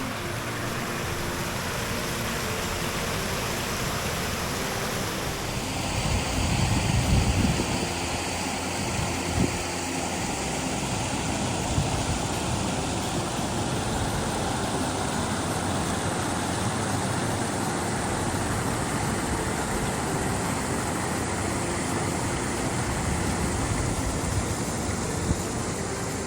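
Car driving, a steady mix of engine and road noise, with a louder low rumble swelling about six to eight seconds in.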